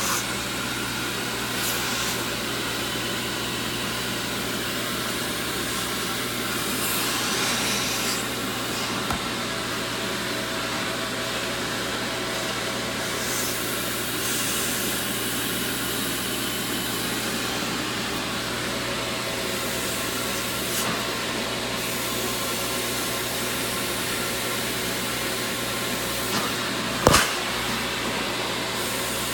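A vacuum motor running steadily, with a sharp knock near the end.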